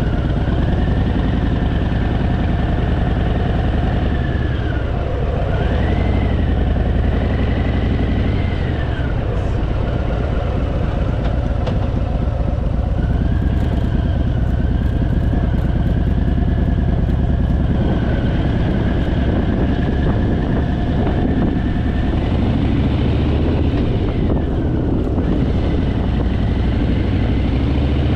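Harley-Davidson Fat Boy's V-twin engine running steadily while riding on the open road, mixed with wind and road noise. The engine pitch rises and falls gently a few times.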